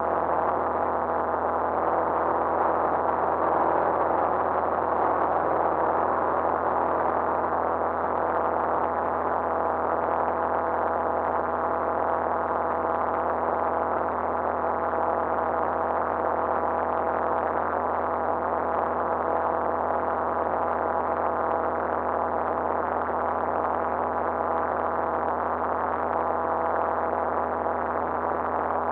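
Light aircraft's piston engine and propeller running steadily in flight, heard from inside the cabin as an even drone with several constant tones.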